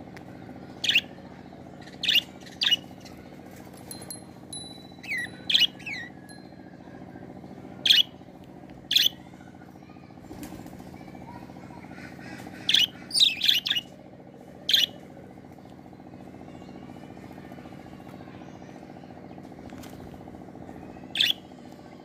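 Budgerigars giving short, sharp chirps, scattered through with a quick run of several a little past halfway, over a steady low hum.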